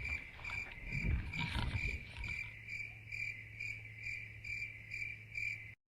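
Road roller's reversing alarm beeping steadily, about two even beeps a second, over a steady low hum and a few low thumps early on; it cuts off abruptly near the end.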